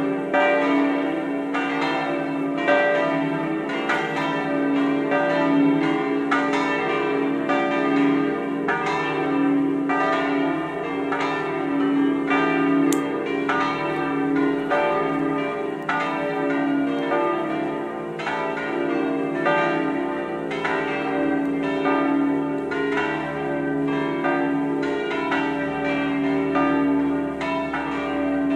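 The seven smaller bells of an eight-bell De Poli peal, tuned from D to C, swinging in full peal (a distesa) with flying clappers: a continuous stream of overlapping strikes over ringing tones, with no pause.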